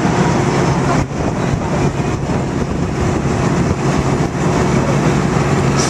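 Amphibious DUKW tour vehicle's engine running steadily as it drives along a city street, heard from on board as a steady low hum mixed with road noise.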